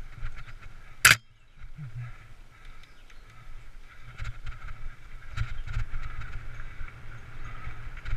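Mountain bike rolling fast down a dirt forest trail, heard from a helmet-mounted camera: wind buffeting the microphone, tyres on the dirt and the bike rattling over bumps, with one sharp loud knock about a second in.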